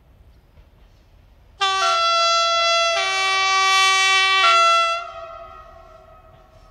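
Railcar's two-tone horn sounding for about three seconds, starting suddenly and switching between its high and low notes a few times. It then dies away with a short echo.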